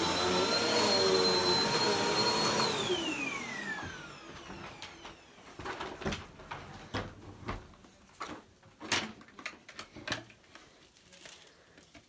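Bagless upright vacuum cleaner running with a high motor whine. It is switched off about three seconds in and winds down with a falling whine, followed by scattered knocks and clicks as it is handled.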